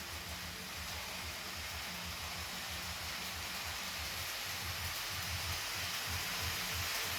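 A long model freight train hauled by two Life-Like GP38-2 locomotives with pancake motors, rolling along the track: a steady hiss of many wheels on rail over an uneven low throb, slowly getting louder.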